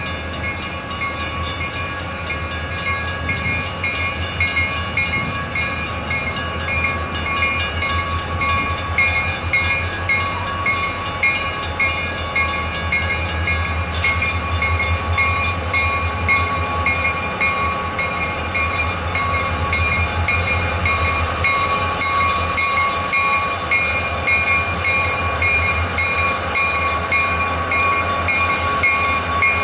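Conrail diesel freight locomotives running past with a steady low engine and wheel rumble that grows louder as the train approaches, under a steady, rapidly pulsing ringing from a grade-crossing bell. A single sharp click about halfway through.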